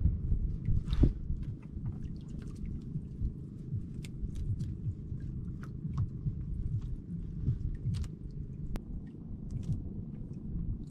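Water lapping against the hull of a small outrigger canoe under a steady low rumble of wind on the microphone, with scattered light clicks and splashes.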